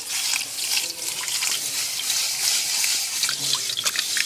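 Water poured in a thin, steady stream into an aluminium bowl, splashing onto sugar and a hand swirling through it, with small drips and splashes.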